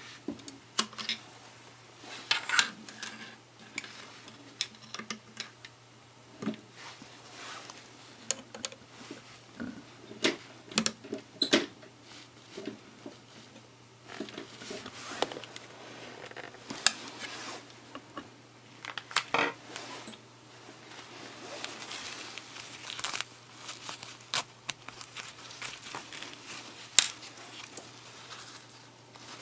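Handling at a sewing machine: irregular small clicks and taps of metal parts and tools, with fabric rustling, over a faint steady low hum.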